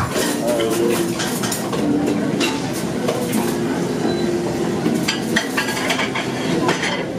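Cafe clatter: dishes and cutlery clinking now and then over a steady background din.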